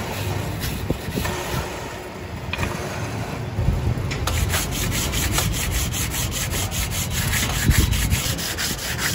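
Hand-sanding a truck clutch disc with abrasive paper: quick back-and-forth scrubbing strokes, which become fast and regular, about five a second, about four seconds in.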